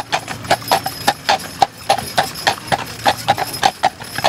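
Hooves of a pair of harnessed draft horses on a paved road: a quick, uneven clip-clop of sharp strikes, several a second.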